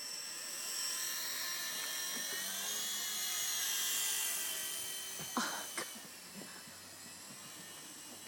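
Blade MSR micro helicopter in flight: a high electric whine from its motors and rotors, several tones drifting up and down in pitch as it manoeuvres, growing louder over the first few seconds and then fading. Two sharp clicks about five and a half seconds in.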